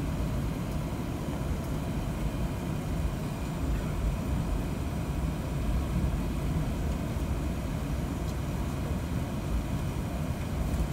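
Steady low rumble inside the cabin of an Airbus A380 taxiing on the ground.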